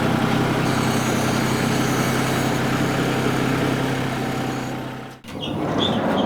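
A steady low machine hum, like an engine running, that fades and cuts off about five seconds in. Short high chirps follow it near the end.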